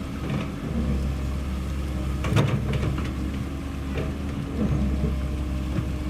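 Komatsu PC130F excavator's diesel engine running steadily while it works, with a few sharp knocks from the machine, the loudest about two and a half seconds in.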